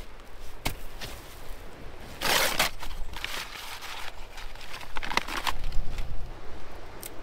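Brown paper bag being crumpled and torn by hand for fire tinder, in a few short rustling bursts, the loudest about two seconds in and another near five seconds.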